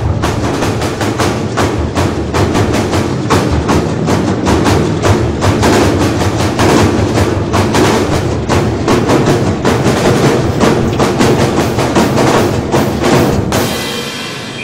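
Drumline percussion playing a fast, steady beat of sharp snare-like strokes over a low drum pulse, which breaks off about a second before the end.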